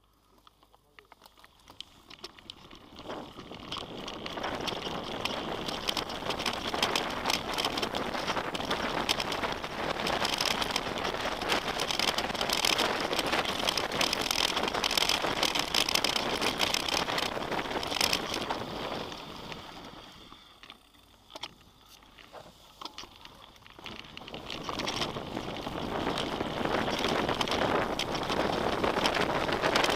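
Mountain bike rolling down a rocky trail: tyres on stones and gravel with many small clicks and knocks, and wind on the microphone. It builds up from quiet over the first few seconds, eases off for a few seconds about two-thirds through, then picks up again.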